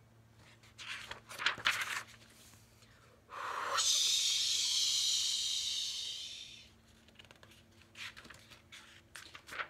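A page of a picture book turning with a few rustles, then a woman's voice making a long breathy 'whoosh' hiss of about three seconds that fades at the end, imitating water spraying from a fire hose.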